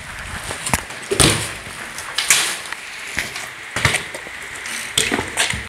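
BMX bike rolling on a concrete floor, with about half a dozen sharp knocks and clacks as its wheels drop back onto the concrete and the frame rattles.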